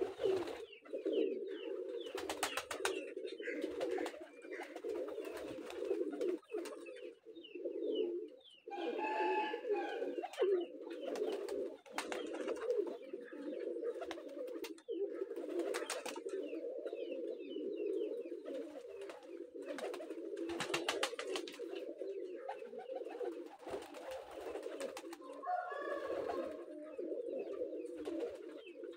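A flock of domestic pigeons cooing continuously, many voices overlapping into a steady low murmur, with scattered brief clicks.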